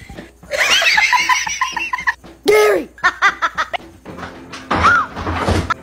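High-pitched laughter in quick repeated bursts, with a short voice call between them and a few knocks and thumps.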